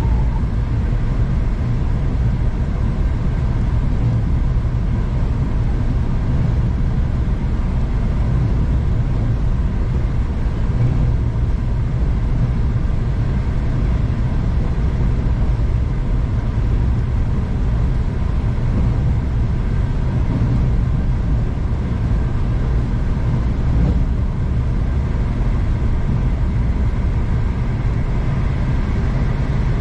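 V/Line passenger train running along the line, a steady low rumble with faint steady hum tones, heard from on board.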